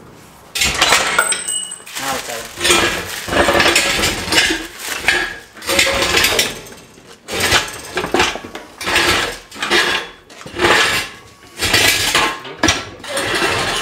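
Repeated metallic clanks and rattles of steel parts and tools being handled, in a string of sharp knocks about a second apart, as a steering rack is worked free of a car's front subframe.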